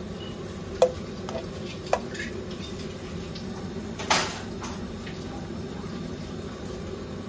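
A pan on the stove with butter melting, a low steady hum beneath. A few sharp clinks of cookware come about a second in and near two seconds, and a louder one about four seconds in.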